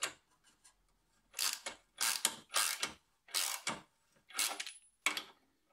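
Ratchet wrench clicking in about six short bursts as it winds down the bolt of a homemade stud extractor, tightening it against a seized exhaust manifold flange stud to press the stud out.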